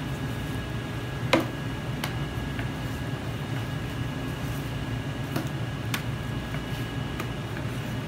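Butcher's knife knocking and tapping on a plastic cutting board while beef is cut into cubes: a handful of sharp knocks, the loudest about a second in, over a steady low machine hum.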